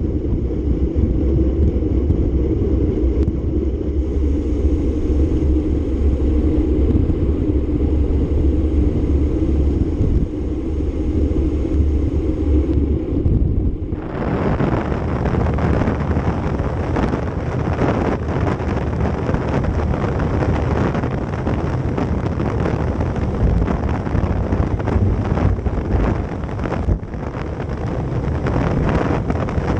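Wind rushing over a bicycle-mounted camera's microphone on a fast road descent at about 35–40 mph, a steady loud rumble. About halfway through it turns abruptly from a low rumble to a brighter, fluttering rush.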